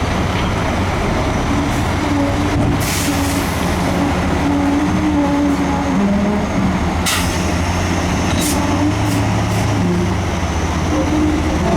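Komatsu crawler bulldozer at work: its diesel engine runs steadily, its pitch rising and falling a little, while its steel tracks rattle, with a few sharp metal clanks.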